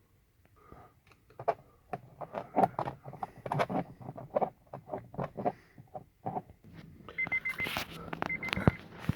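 Clicks and knocks of a screwdriver and parts being worked on the CR-V's steering column. From about seven seconds in, the car's dashboard warning chime beeps in quick bursts about once a second, with a sharp click near the end.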